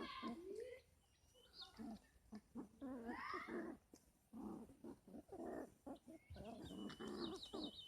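Puppies whining and yelping in a run of short, pitched cries that rise and fall, with a higher wavering squeal near the end.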